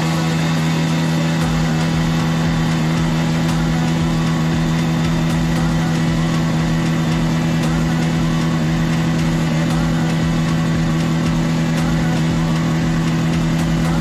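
Bajaj Pulsar N160's single-cylinder engine through its stock exhaust, held at a steady high rev.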